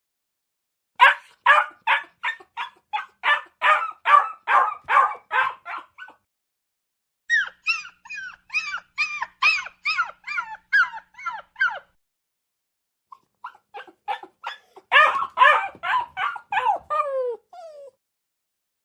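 A puppy whimpering and yipping in three bouts of quick, short, high cries, about four a second, with short pauses between the bouts. In the middle bout many of the cries fall in pitch.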